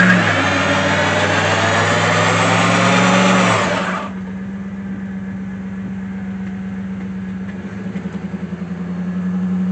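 Camaro pickup's engine held at high revs while the rear tyres spin and squeal in a smoky burnout. About four seconds in the squeal stops and the engine drops back to a steady idle.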